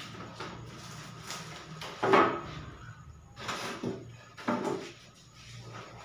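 Boards and sheets of panel being shifted and rummaged through: a series of scrapes, knocks and rustles, the loudest clatter about two seconds in and a few more between three and a half and five seconds.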